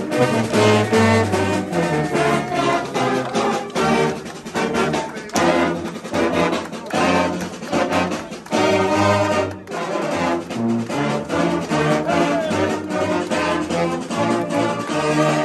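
A live pep band playing, led by trombones and trumpets with saxophones, dense and continuous with sharp accents throughout.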